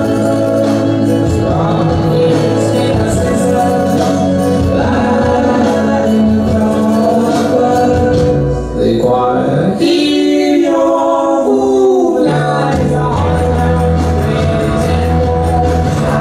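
Recorded dance-routine music with singing. About halfway through, the bass drops out, leaving a voice sliding up and down through long notes. The bass and beat come back in a few seconds later.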